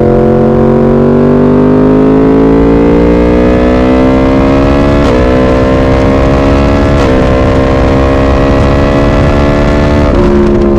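Yamaha MT-10 motorcycle engine pulling under load through an aftermarket titanium exhaust, its pitch climbing slowly. There are two brief breaks about five and seven seconds in, and the pitch falls near the end.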